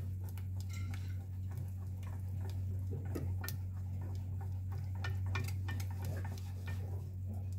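A silicone whisk stirring thick béchamel sauce in a saucepan, making quick irregular clicks and soft scrapes against the pan, over a steady low hum.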